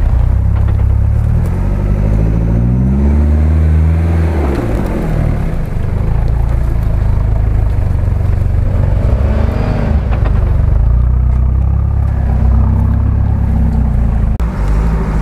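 Toyota 4Runner's turbocharged engine revving as the lifted 4x4 crawls over rough ground, its pitch climbing and falling several times.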